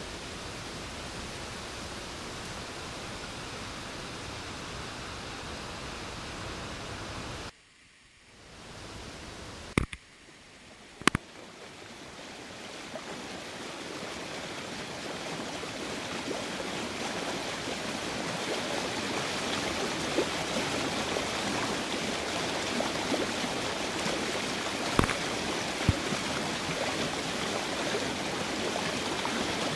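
Rushing water of a small waterfall and stream, a steady hiss. About a quarter of the way in it cuts out suddenly to near quiet, with two sharp clicks, then the water sound swells back and grows louder toward the end.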